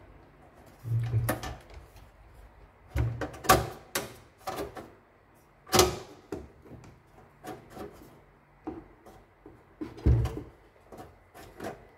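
Irregular knocks, clicks and rattles of a bread maker's sheet-metal baking-chamber frame and plastic casing being pushed and fitted back together by hand. The sharpest knock comes about six seconds in.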